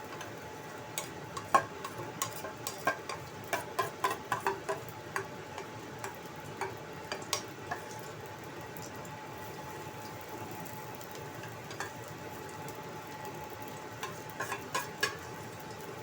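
Potato-and-carrot fritter batter frying in oil in a thin wok, a steady sizzle. Clusters of sharp clicks and taps come over it during the first few seconds and again near the end.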